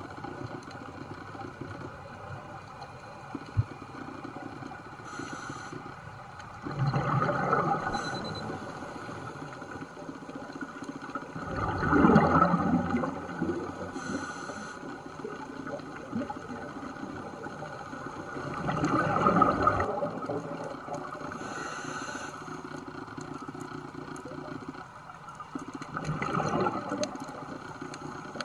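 Scuba diver breathing through a regulator, heard underwater. Four loud rushes of exhaled bubbles come about every six to seven seconds, with short high hisses of inhalation between them, over a steady background noise.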